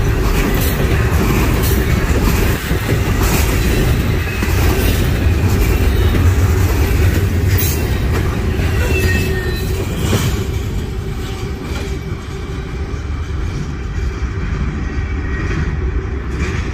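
Freight train rolling past: a steady heavy rumble of railroad cars, with scattered clicks of wheels over the rail and a faint wheel squeal now and then. It eases off in the last few seconds.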